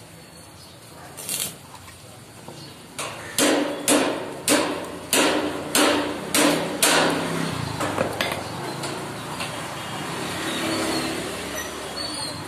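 Wooden-handled hammer striking a steel frame at a welded joint, about eight sharp metallic blows roughly two a second, each with a short ring.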